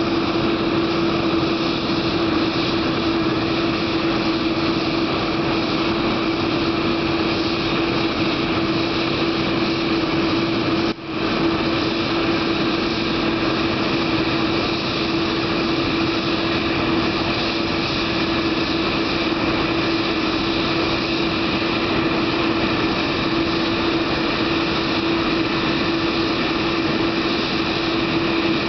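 Boeing 787 Dreamliner running steadily on the ground: a constant jet whine over a steady rush, with one brief drop in level about eleven seconds in. Nothing in it marks an engine spooling up, so the start of the number 2 engine is not heard.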